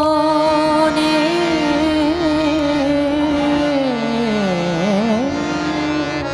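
Woman singing a Punjabi Sufi song, holding one long sustained note. About four seconds in she breaks it into quick ornamental turns and slides down to a lower pitch, then climbs back up. Steady instrumental accompaniment runs beneath.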